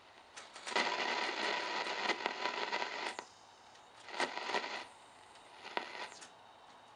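R-390A tube receiver's audio giving bursts of static and crackle as it is tuned through the low-frequency band near 60 kHz. One long burst is followed by two shorter ones, with near-quiet hiss between them.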